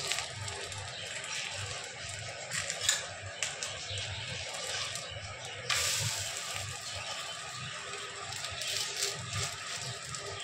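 Semolina pancake batter sizzling steadily in a frying pan, with a few sharp clicks. The sizzle gets suddenly louder a little past halfway.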